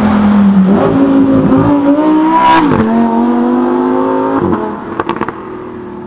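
Lamborghini Huracán STO's naturally aspirated V10 pulling hard, its note climbing through the revs and then dropping sharply at an upshift about two and a half seconds in. Near the end the throttle lifts, the engine falls quieter, and a few sharp exhaust pops follow.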